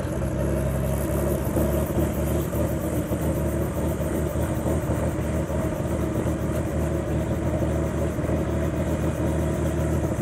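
Light helicopter running steadily at ground idle on the apron: a constant engine and rotor hum with a fast, even pulsing.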